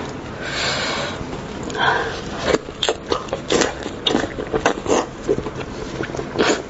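Close-miked mouth sounds of a person eating braised lamb's-head meat: a short hissing noise about half a second in, then wet chewing with a run of irregular lip-smacking clicks from about two and a half seconds on.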